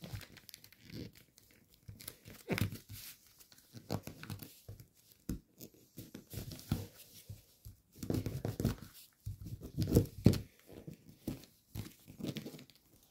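Gold foil origami paper being folded and creased by hand, giving irregular crinkling and crackling. It is busiest and loudest about eight to ten seconds in.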